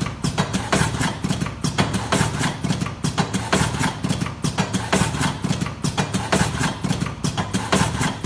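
Electric fully automatic cigarette rolling machine with a pneumatic system running, a steady motor hum under rapid, even clacking, several strokes a second, as it presses and pushes tobacco into tubes in its normal mode at about 14 cartons an hour.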